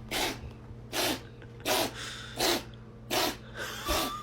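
A cat sneezing over and over in a fit: six short, sharp sneezes evenly spaced about three-quarters of a second apart.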